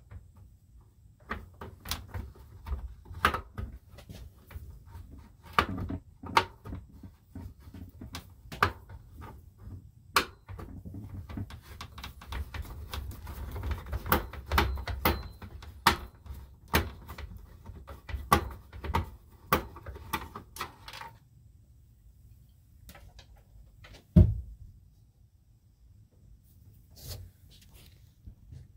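Screwdriver working against a plastic roof vent fan housing and ceiling panel: a run of irregular clicks, taps and scrapes for about twenty seconds, then one loud knock a few seconds later and a few softer knocks near the end.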